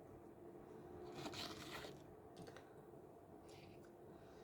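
Near silence: room tone, with a faint rustle about a second in.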